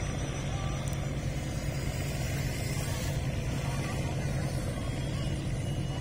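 Boat engine running steadily with a low, even drone.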